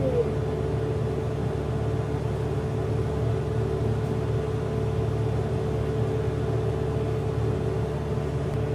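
Steady low mechanical hum with a thin constant tone above it, like an appliance or air conditioner running in the room.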